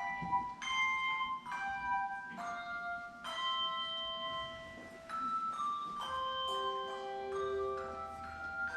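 Handbell choir playing a piece: chords of bell tones struck about once a second, each ringing on under the next, with some notes held for a couple of seconds.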